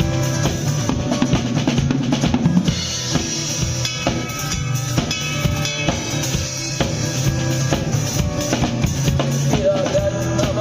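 Live drum kit playing a rock beat, with bass drum and snare rimshots, over sustained low backing notes. A voice begins singing near the end.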